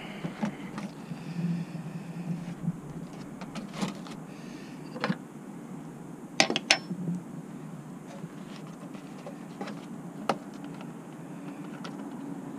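Scattered light clicks and knocks from hands handling a plastic coolant jug and the degas tank's metal pressure cap. The sharpest pair comes about six and a half seconds in, as the cap comes off, and another click follows near ten seconds.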